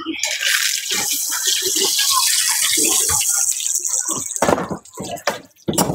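Hot oil sizzling steadily as a scallion pancake fries on the stall's griddle, dying away about four seconds in, followed by a few sharp knocks of utensils.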